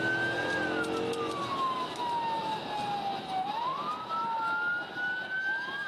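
Police car siren on the wail setting, its pitch slowly rising and falling, with another climb about three and a half seconds in, over steady road and engine noise from the pursuing cruiser.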